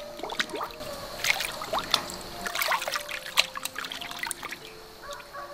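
Water splashing and sloshing in a large stainless-steel basin as hands rub and rinse fish, with irregular drips and small splashes.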